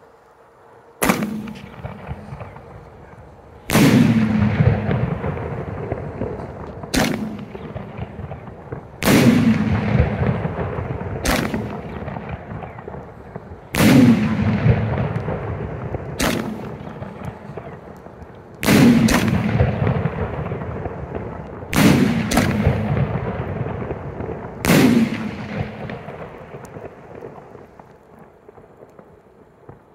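4-inch salute canister shells fired one after another, six in all. Each one goes with a thump from the mortar tube, then a loud report in the air two to three seconds later that rolls away in echoes. The last few follow faster.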